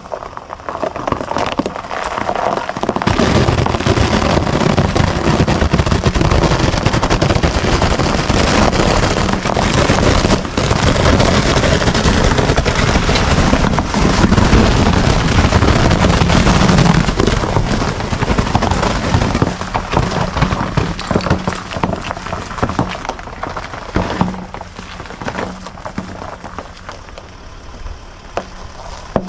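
Land Rover Discovery 4's tyres breaking through and crunching over ice on a frozen road, in a dense run of loud cracks. The cracking starts about three seconds in and is at its loudest until a little past the middle, then eases off over a steady low hum.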